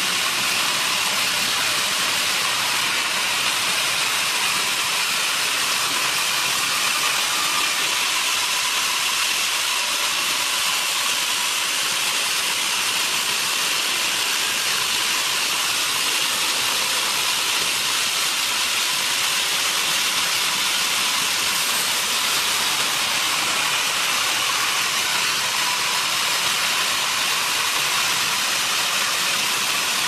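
Electric horizontal band sawmill running, its band blade cutting lengthwise through a squared timber: a steady, high-pitched hissing noise with no change in level.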